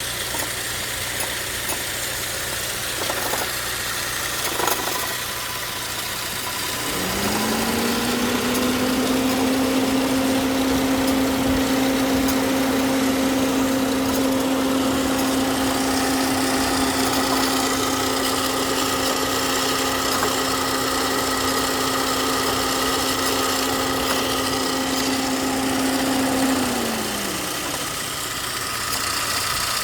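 A machine hum over a steady noisy background. About seven seconds in it rises quickly to a steady pitch, holds there for about twenty seconds, then winds down near the end.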